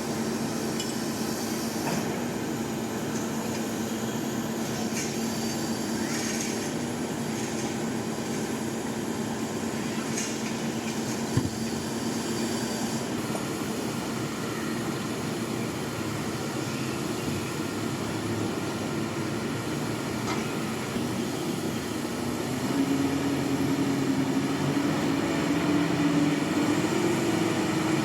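A large diesel engine on heavy construction machinery running steadily with a droning tone. There is a single knock about 11 seconds in. About 23 seconds in it gets louder and its pitch rises, as the engine is revved up.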